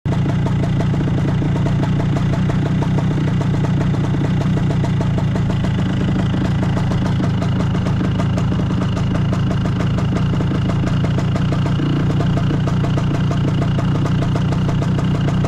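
Classic Vespa Sprint's two-stroke single-cylinder engine idling steadily at a standstill. The engine draws false air through a leaking seal and sucks gearbox oil, two defects that roughly balance each other, so it still runs.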